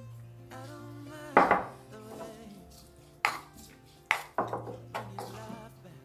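Sharp knocks and clinks of kitchen utensils, about half a dozen, the loudest about a second and a half in, over soft background music.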